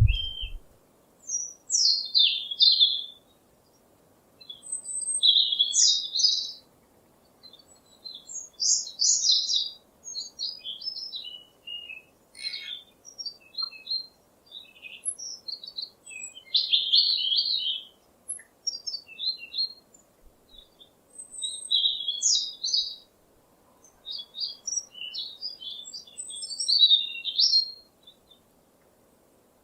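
Songbirds chirping and singing in high, quick phrases, each a second or two long, with short pauses between them.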